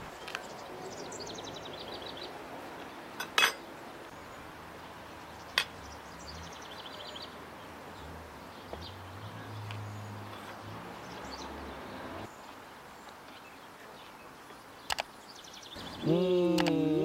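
Outdoor meal sounds: a few sharp clinks of cutlery and metal dishes, the loudest about three and a half seconds in, over a steady outdoor background with short trills of birdsong. Near the end comes a brief, loud pitched sound that bends in pitch.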